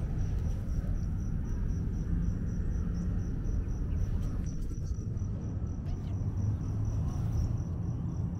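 An insect chirping a high note in an even, repeating pulse, over a steady low rumble.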